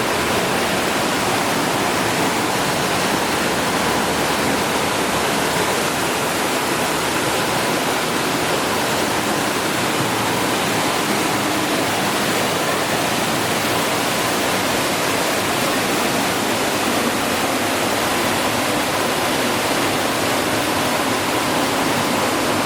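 Waterfall pouring into Kanarraville Creek in a slot canyon: a loud, steady rush of falling water.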